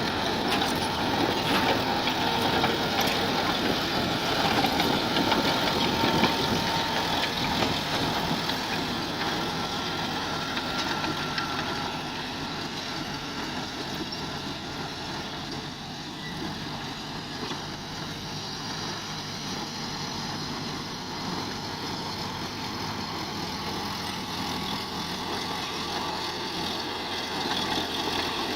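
Mini excavator's engine running steadily while it works, with a few light clicks in the first seconds and the level easing a little partway through.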